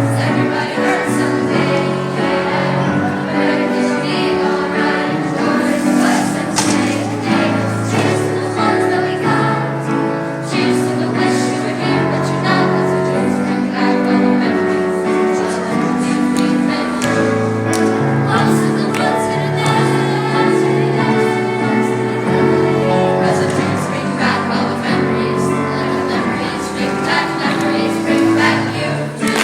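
Music with a choir singing, the voices holding long notes that change in steps.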